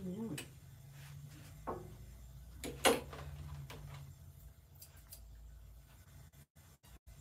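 Clicks and knocks of grooming tools being handled on a grooming table, the sharpest about three seconds in, over a low steady hum.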